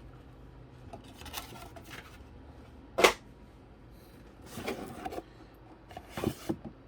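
Cardboard and paper being handled: the inserts and leaflets of a Pokémon Elite Trainer Box rustle and shift, with one sharp brief snap or scrape about three seconds in and a few light clicks near the end.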